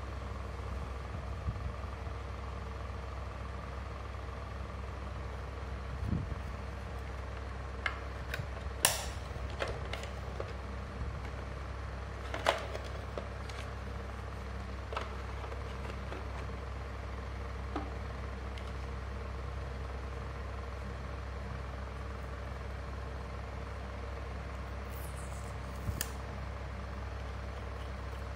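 Plastic parts of a small mini air-cooler fan being handled, giving a few scattered clicks and knocks over a steady low hum.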